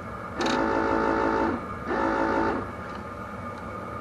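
An electronic buzzer tone sounding in two bursts, the first about a second long and the second shorter, starting and stopping abruptly.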